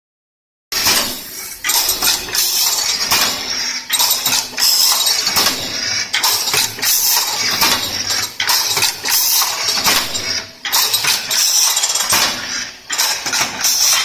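Crimped wire mesh weaving machine running, a loud, steady metallic clatter of repeated clanks at about two a second as it weaves steel wire into mesh.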